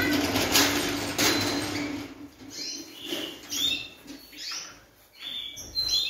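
A small metal trolley rolls across a concrete floor for about the first two seconds. Then small caged birds flutter their wings and give short, quick, falling chirps.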